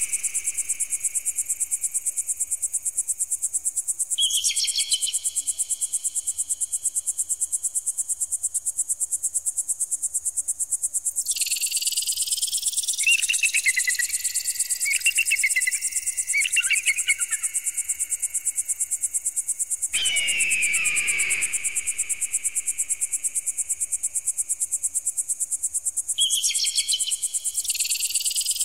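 Electronic pigeon-repeller sound: a continuous high-pitched, very rapidly pulsing tone with rising sweeps that repeat roughly every eight seconds. Falling cries come in at the start and again about twenty seconds in, with short chirping calls and held tones in between.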